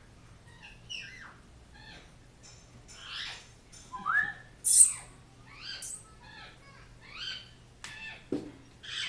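Pet parrot calling: a string of short squawks, chirps and whistled notes, some sliding in pitch, with one sharp, high screech a little before the middle as the loudest.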